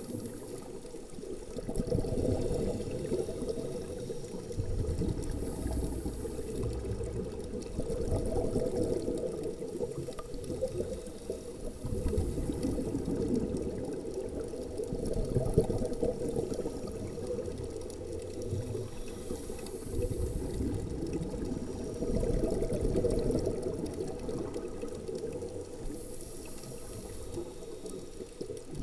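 Scuba diver's breathing heard underwater: regulator exhaust bubbles swelling and fading every three to four seconds, with a high hiss now and then.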